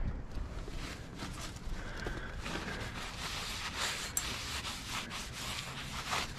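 A rag rubbing and wiping solvent-wet grime off the steel bed and carriage of a Hardinge HC turret lathe, in continuous, irregular strokes.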